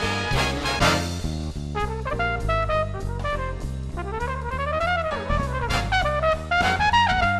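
Background jazz music led by brass, with drums, and a horn line that rises and falls about halfway through.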